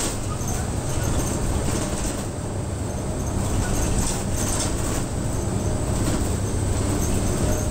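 Cabin sound of a route bus on the move: steady engine drone and low road rumble heard from inside the bus.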